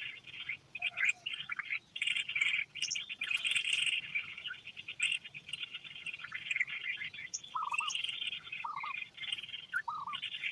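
Wildlife chorus: a dense, rapidly pulsing trill that runs almost without a break, with short chirping calls over it and a few lower calls near the end.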